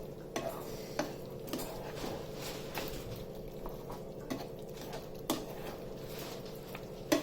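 Metal spoon stirring in a kadai, with light, irregular clicks and scrapes against the pan about once a second, as ground cashew paste is mixed into chicken semi-gravy.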